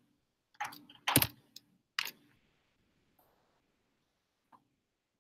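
A few computer keyboard keystrokes: a quick cluster of key presses in the first two seconds, then a single faint tap about four and a half seconds in.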